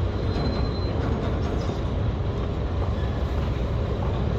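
Heavy construction machinery running with a steady deep rumble: a truck-mounted crane's diesel engine with its pile-driving rig for H-beam piles.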